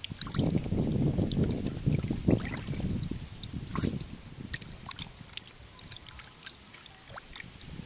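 Water splashing and sloshing in a metal basin as hands rub and squeeze chunks of raw cow nose to wash them. It is busiest for the first few seconds, then quieter.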